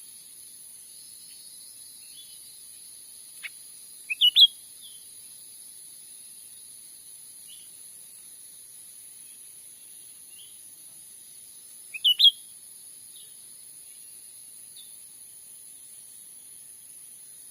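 Cucak ranting calls: two short bursts of about three quick, sharp, rising chirps, about four seconds in and again near twelve seconds, with faint scattered chirps between. A steady high insect hiss runs underneath.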